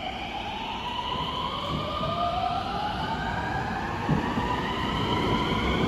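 521 series electric train pulling into the platform under braking: its VVVF inverter whines in several tones that rise slowly in pitch, over the rumble of the wheels on the rails. A brief knock about four seconds in.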